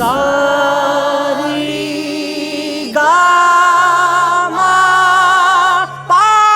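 A voice singing long held notes with vibrato in three phrases, each opening with an upward slide in pitch, the second and third higher and louder than the first, over a low held accompaniment note.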